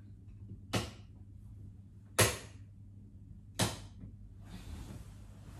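Three sharp clicks of room light switches being pressed, spaced about a second and a half apart as the lights are switched off, the middle click the loudest.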